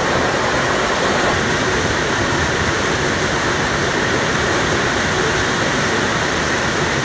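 Heavy rain pouring down, a steady dense hiss.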